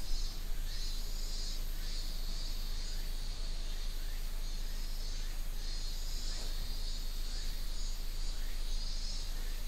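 Insects chirring steadily, the high sound swelling and fading in stretches of a second or so, over a constant low electrical hum.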